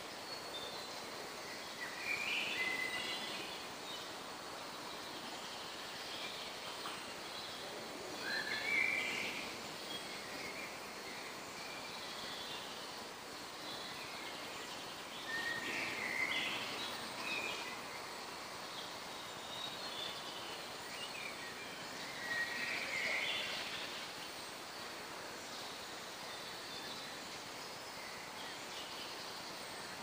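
A songbird singing short, bright phrases about every six or seven seconds over a steady background hiss of forest ambience.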